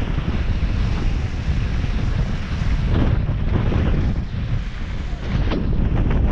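Wind buffeting the microphone during a fast downhill run on snow, with a steady hiss and the occasional scrape of edges carving over packed snow.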